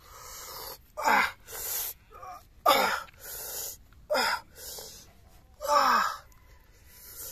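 A person breathing hard and groaning with effort: four short voiced groans, each falling in pitch and each after a loud breathy intake, about one every one and a half seconds.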